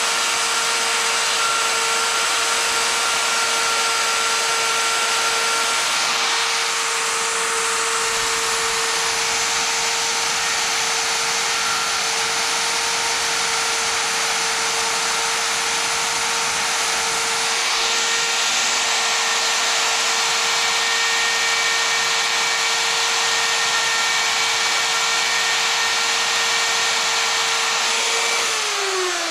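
Electric die grinder with a carbide burr running at a steady high whine while it deburrs the sharp edges of the flycut valve reliefs on an aluminum piston. Near the end it is switched off and the whine falls in pitch as it spins down.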